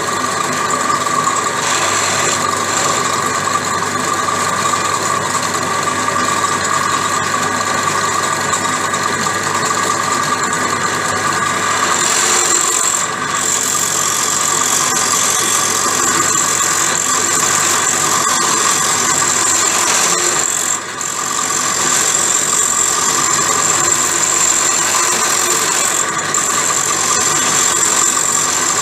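Pillar drill press running with a small cutter grinding into the dogs of a hardened steel gearbox gear, back-cutting their leading edges so the gear stops slipping out of mesh. A steady machine hum under a high metallic whine that grows stronger about halfway through, with two brief breaks.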